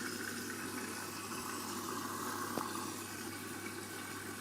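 Candy washing machine filling for its main wash: water running in through the detergent drawer and flushing the washing powder into the drum, with a steady low hum underneath.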